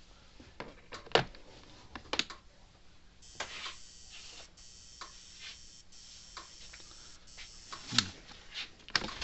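A Power Wizard PW12000 electric fence energizer, just plugged in, buzzing faintly in short on-and-off cycles over a low hum, with no pulse clicks: it cycles but does not fire, a sign of its no-output fault. A few sharp knocks of the unit being handled, the loudest about a second in and near the end.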